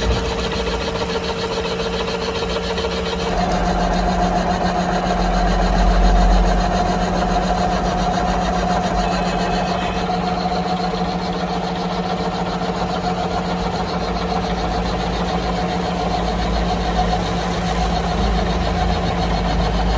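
Mitsubishi engine lathe running under power, turning a long steel shaft against the cutting tool, with the follow rest's rollers riding on the work. It makes a steady machine hum with a whine that shifts higher about three seconds in.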